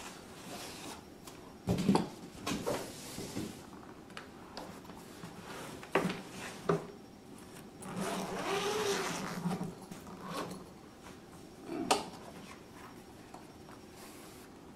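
Unpacking handling noise: foam packing pieces pulled off and a padded fabric solar-panel case set down on carpet, with several sharp knocks. About eight seconds in comes a longer rasp as the case is unzipped and opened.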